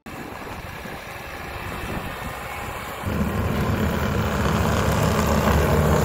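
Bobcat T650 compact track loader's diesel engine running. It grows louder with a heavier low rumble about three seconds in.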